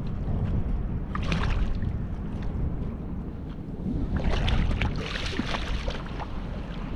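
A hooked striped bass splashing and thrashing at the surface beside the boat as it is reeled in, in noisy bursts about a second in and again from about four seconds in, over steady wind and water noise.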